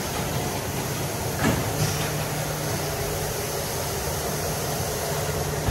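Coleman Hanna Water Wizard touchless car wash gantry running along its rail over the car, with a steady low mechanical hum. There is a short clunk about one and a half seconds in, after which the hum steadies.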